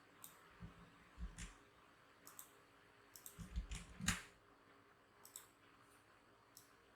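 Scattered clicks from a computer mouse and keyboard, with a quick run of several about three and a half to four seconds in, some with a dull knock.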